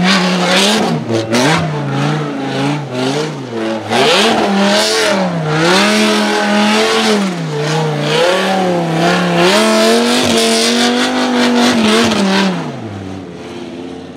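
Twin-turbocharged, nitrous-fed 8.3-litre V10 of a Dodge Viper SRT10 drift car revving hard, its pitch rising and falling over and over as the car drifts and spins donuts with the rear tyres spinning. Near the end the revs fall away and the sound fades.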